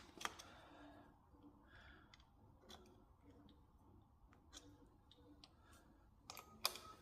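Near silence with faint scattered clicks and small handling knocks, a sharper click about a third of a second in and a few louder clicks near the end.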